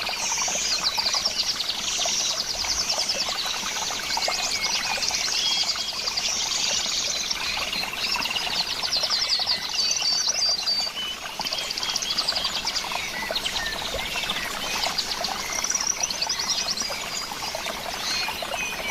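Many small birds chirping and trilling at once, with rapid repeated trills and short whistled notes overlapping throughout, over a steady trickle of running water.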